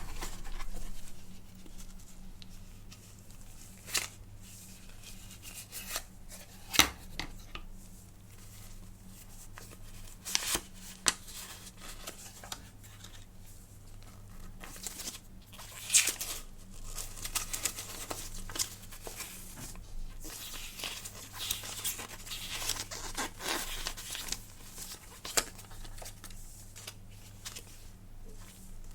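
Close-up handling of smartphone packaging: scattered sharp clicks and taps, with a longer stretch of rustling from about halfway through, over a faint steady low hum.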